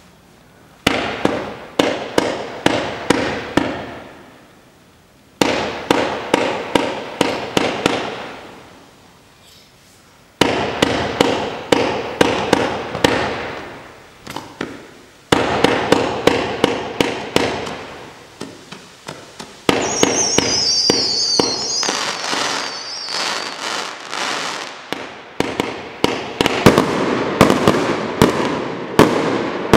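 XP4600 Snowstorm compound firework cake of 25 mm tubes firing rapid shots in four volleys of a few seconds each, with short pauses between. Continuous firing begins about twenty seconds in, with a brief high whistling over it.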